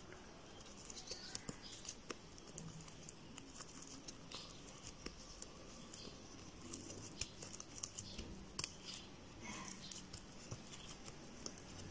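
Faint, scattered little clicks and rustles of a crochet hook and yarn being handled as single crochet stitches are worked.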